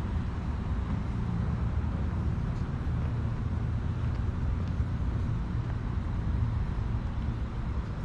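Steady low rumble of distant road traffic, with a few faint high chirps.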